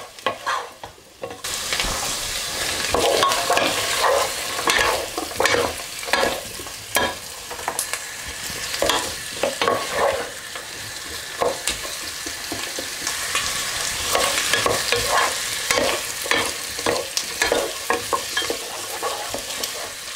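Diced potatoes, carrots and onion frying and sizzling in a pot, stirred and scraped with a wooden spatula: a steady sizzle with many short scrapes and knocks against the pan. The sizzle gets suddenly louder about a second and a half in.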